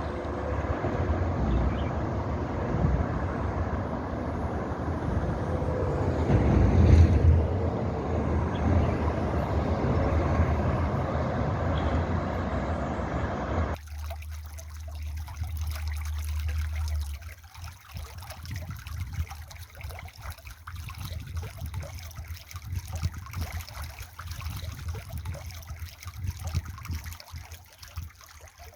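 A steady, dense rumbling noise like passing traffic, which cuts off suddenly about halfway through. It gives way to a quieter trickle of running water with many small irregular drips.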